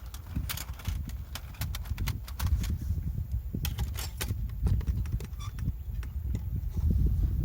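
Wind buffeting the microphone in a steady low rumble, with scattered irregular clicks and taps over it.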